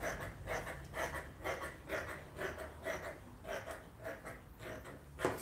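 Dressmaker's shears cutting through fabric along a curved line: a steady run of crisp snips, about two a second, with one louder snip near the end.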